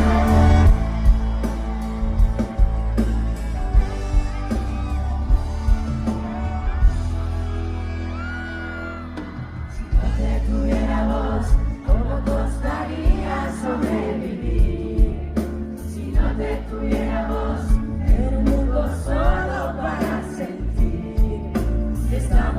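Live pop-rock band playing loud, with heavy bass and drums, and a crowd whooping. The music thins out about a third of the way in, then the full band comes back about ten seconds in with singing over it.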